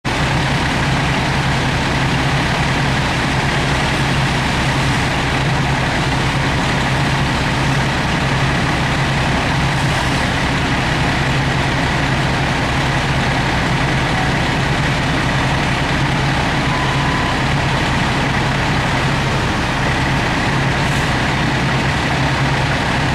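Fire engine's diesel engine running steadily: a loud, even drone with a faint, high, steady whine above it.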